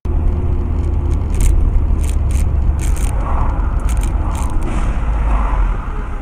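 Car driving along a city street, heard from inside the cabin: a steady low rumble of engine and road noise, with several short, sharp clicks or rattles between about one and five seconds in.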